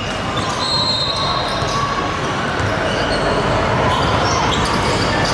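Basketball game play on an indoor court: the ball bouncing, short high squeaks from sneakers on the hardwood, and crowd noise echoing in the gym.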